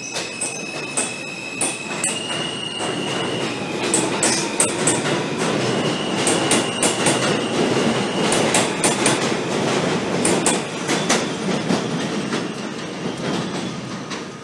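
New York City Subway train moving along an underground station platform. The wheels click rapidly over the rail joints, with a steady high squeal from the wheels, and the sound grows louder toward the middle.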